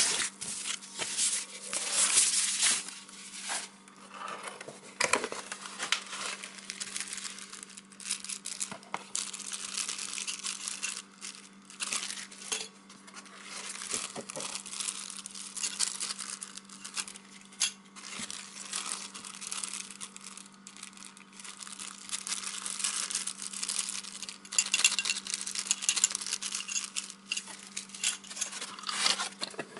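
A clear plastic bag crinkling and rustling as it is handled, with irregular taps and clicks from packaging and foam inserts in a cardboard box. The crinkling is loudest at the start and again near the end, over a steady low hum.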